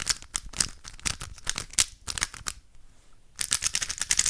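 Yuxin Little Magic M magnetic 3x3 speedcube being turned fast, its layers clacking in rapid runs of clicks, with a short pause about two and a half seconds in before another burst of turns.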